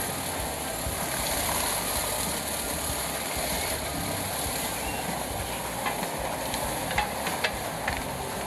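Morbark 2755 wood chipper running steadily, a continuous hissing noise of the machine and chips, with a few sharp clicks and knocks near the end.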